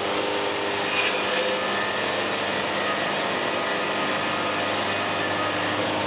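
Portable band sawmill running steadily, its band blade sawing through a rainbow poplar log with an even, unbroken whir.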